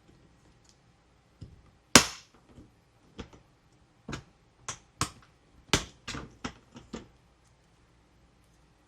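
About ten sharp clicks and knocks of hard plastic toy pieces being handled during an unboxing, irregularly spaced, the loudest about two seconds in.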